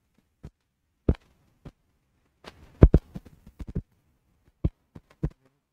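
A scattered series of short, sharp clicks and knocks at irregular intervals, most of them bunched together in the middle.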